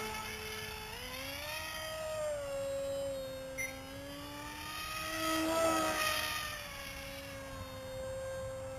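Electric motor and propeller of an RC foam F-35 model plane under power: a steady whine that steps up in pitch about a second in as the plane takes off, then rises and dips as it flies past.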